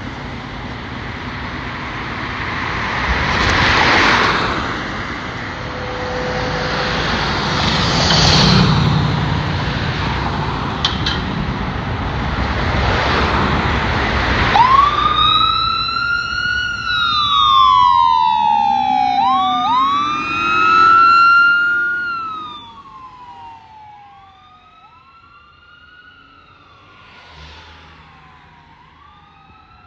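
Pierce fire engine leaving its station on a call. For about the first half its diesel engine runs loud, swelling several times. About halfway through, an electronic siren starts wailing, each cycle rising quickly and falling slowly, with a lower rising growl beneath it for a few seconds; then the siren grows fainter as the truck drives away.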